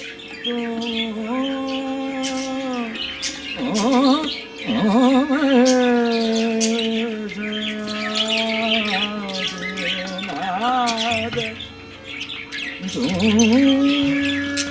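Caged budgerigars, cockatiels and Java finches chirping and squawking continually over background music, a slow melody of long held, wavering notes.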